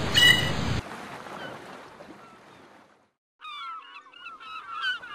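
A loud rushing noise with a brief whistle-like tone cuts off under a second in and fades away. After a short silence, a flock of birds starts calling: many short calls that bend in pitch and overlap.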